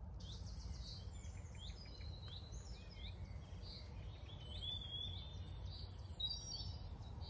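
Several songbirds singing at once: overlapping high chirps, trills and whistles, over a steady low rumble.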